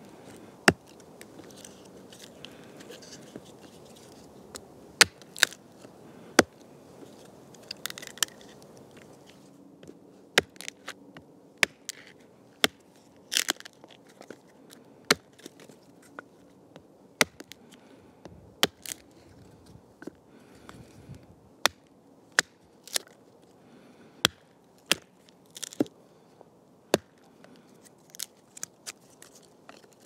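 Gränsfors axe chopping and splitting firewood on a stump chopping block: repeated sharp chops, roughly one every second or two, some in quick pairs.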